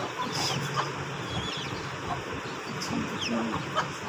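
Young mottled bantam chicks peeping, a scattering of short, falling chirps with a few lower calls among them.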